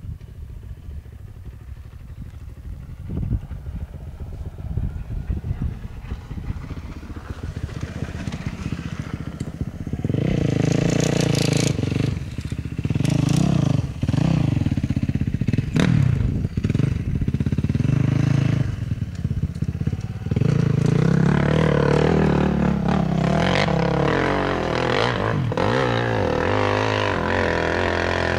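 Dirt bike engine revving on a steep hill climb, its pitch rising and falling with the throttle. It is fainter for the first ten seconds or so, then loud for the rest, with a few sharp clicks along the way.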